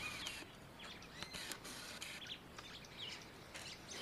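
Faint woodland ambience with scattered short bird chirps, several quick rising and falling calls, and a few soft ticks.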